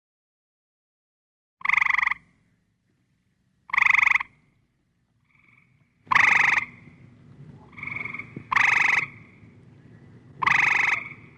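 A frog calling: five loud, pulsed croaks of about half a second each, spaced roughly two seconds apart, with a fainter short call between two of them. A low background hum comes in at the third croak.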